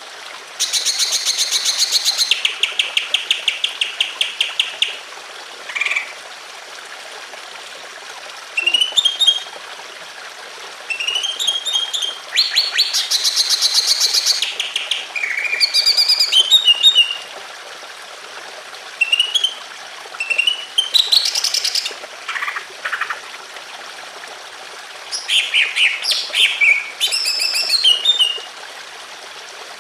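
Cucak ijo (green leafbird) singing in bursts of fast chattering trills and short whistled notes, phrase after phrase with brief pauses, over a steady trickle of running water.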